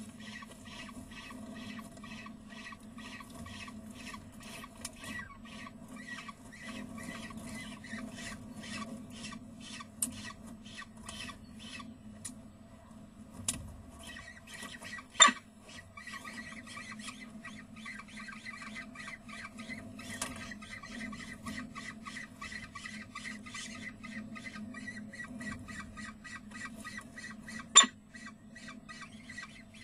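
Downy peregrine falcon chicks begging while being fed: a rapid run of short scratchy calls, about two or three a second, over a steady hum. Two sharp clicks stand out, one about halfway through and one near the end.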